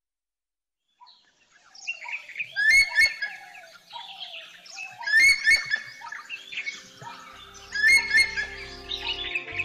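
Bird calls over soundtrack music. After a second of silence, chirping calls build up, with a burst of sharp calls and knocks recurring about every two and a half seconds, and sustained music tones come in near the end.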